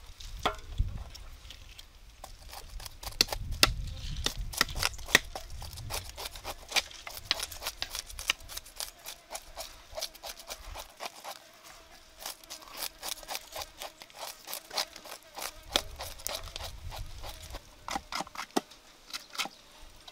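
Fish being scaled on wooden chopping blocks with a knife and a hand scraper: many quick, irregular scraping strokes.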